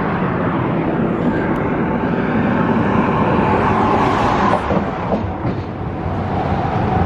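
Steady road-vehicle noise, with the pitch of passing traffic drifting up and down.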